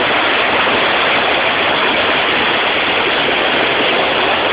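Waterfall rushing steadily, a loud, even wash of falling water.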